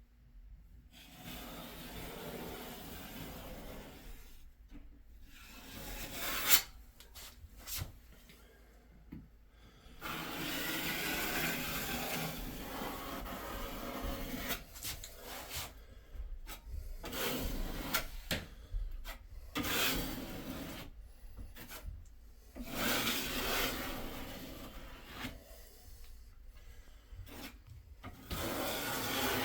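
Repeated rubbing and scraping strokes of a hand tool's blade spreading waterproofing sealant along a wall-board seam, in passes of a few seconds with short pauses between them. There is one sharp tap about a fifth of the way in.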